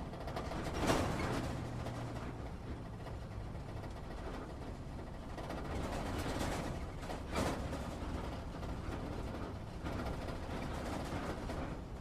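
Off-road vehicle heard from inside the cabin while driving over rough ground: a steady low engine and drivetrain rumble with interior rattling, and sharp jolting knocks about a second in and again about seven seconds in.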